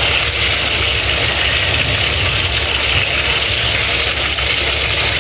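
Onions and ground kofta spice mix sizzling steadily in hot oil in a large aluminium pot as a wooden spoon stirs them, over a constant low rumble.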